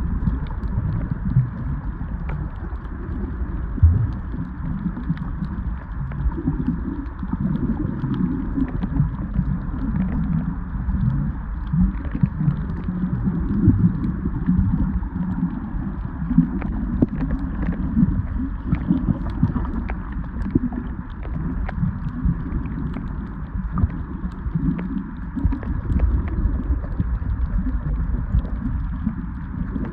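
Muffled underwater noise: a continuous low rumble of moving water against the camera housing, with scattered faint clicks.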